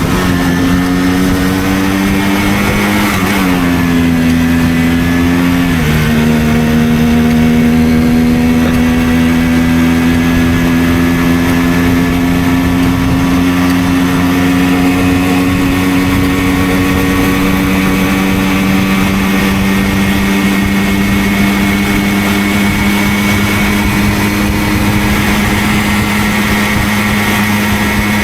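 Simson single-cylinder two-stroke moped engine running under way. Its pitch drops twice, about three and six seconds in, then holds steady and slowly climbs as it pulls.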